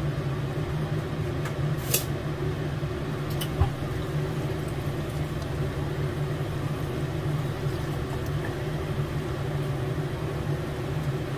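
Steady low mechanical hum in a home kitchen, with a couple of short knocks of a utensil against a frying pan, the sharper one about two seconds in and a duller one about three and a half seconds in.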